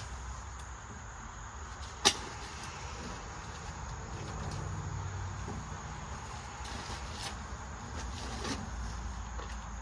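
Welding equipment handled while being fitted to a cart: one sharp knock about two seconds in and a few fainter clicks later, over a steady low background hum.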